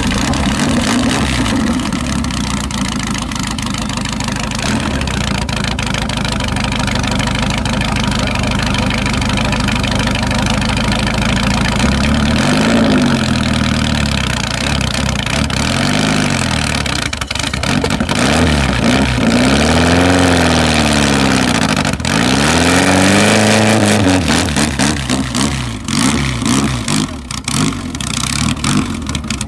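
Bertone Stratos Zero's four-cylinder V4 engine running at idle through its twin exhausts. From about twelve seconds in it is revved four times, each rev rising and falling back to idle. Near the end the idle is uneven, with small blips.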